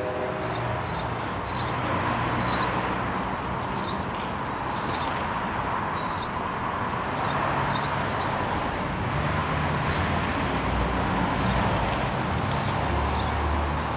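Street ambience: a steady wash of passing traffic, with a deeper vehicle rumble building in the last few seconds and short high chirps repeating faintly over it.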